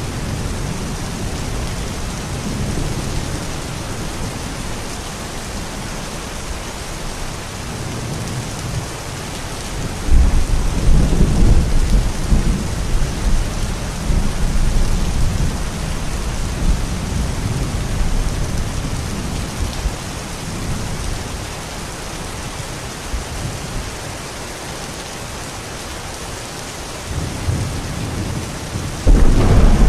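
Steady heavy rain with rolling thunder: a loud, deep thunderclap breaks in suddenly about ten seconds in and rumbles for several seconds before easing, and another starts just before the end.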